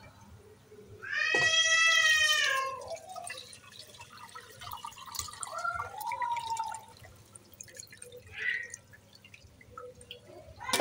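Whey from lemon-curdled milk draining and dripping through a fine steel mesh strainer as the chhena is poured in. About a second in, a loud, high, drawn-out cry falling in pitch sounds over it, with a shorter wavering cry around the middle.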